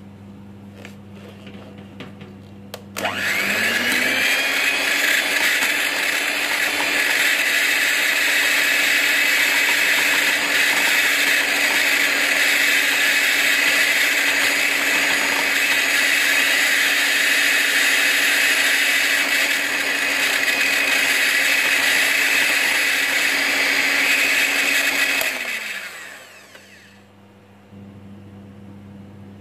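Morphy Richards electric hand mixer starting up about three seconds in with a rising whine, then running steadily with its beaters whipping cream in a glass bowl toward stiff peaks. Near the end it is switched off and winds down with a falling whine.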